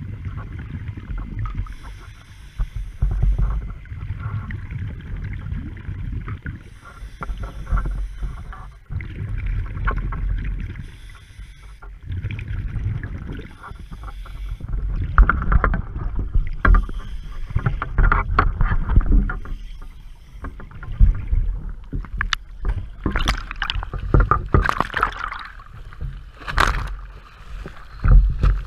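Scuba diving sounds heard through an underwater camera: a regulator hissing on each breath every few seconds over the low rumble of exhaled bubbles and moving water. In the last several seconds this gives way to sharp splashes and choppy waves slapping as the camera breaks the surface beside a boat's hull.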